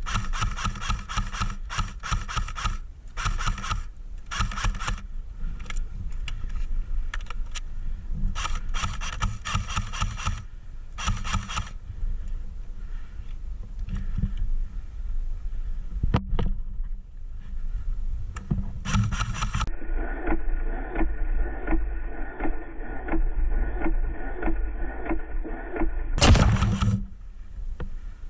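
Airsoft electric rifle (AEG) fired in repeated full-auto bursts, each a fast string of shots with a motor-driven whine, several bursts in the first twelve seconds. Later comes a stretch with a muffled, top-cut sound, then a single sharp loud bang about 26 seconds in.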